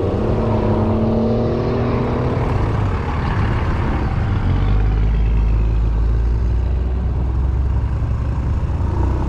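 Yamaha Smax 155 scooter's single-cylinder engine running steadily at road speed. A low rumble grows louder about halfway through.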